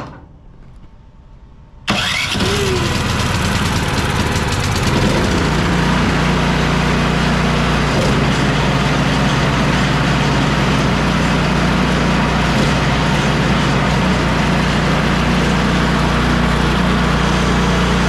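Husqvarna ST224 snowblower's LCT PW2HK18650 single-cylinder engine is started with the electric starter about two seconds in, catches at once and runs steadily on choke at fast throttle, a little louder from about five seconds in. It starts and runs smoothly now that the carburetor has been cleaned of water and gunk.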